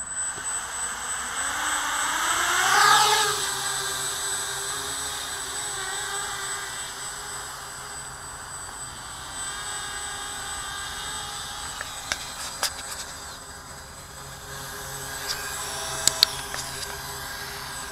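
Small quadcopter's four 1900 kV brushless motors with 7035 propellers spinning up, the whine rising in pitch to a peak about three seconds in, then settling into a steady hovering drone. A few sharp clicks come near the end.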